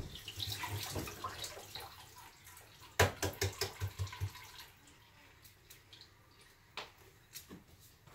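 Kitchen work sounds: water splashing briefly, then a sharp knock about three seconds in followed by a quick run of clicks and taps, with scattered single taps after.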